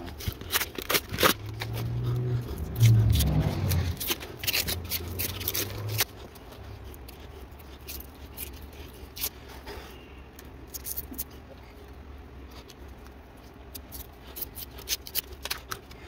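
Cardboard packaging tube being torn and peeled off a homemade wax candle: dense crackling and ripping for the first six seconds over a low rumble, then only a few scattered small clicks.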